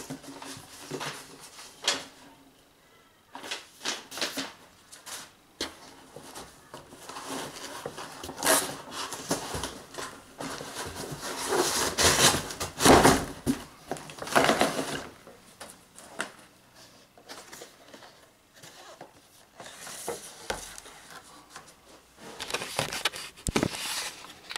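Rummaging through a cardboard box of packaging: irregular rustling and crinkling with short knocks, loudest in a long run of rustling about halfway through as a card-and-plastic blister pack is lifted out.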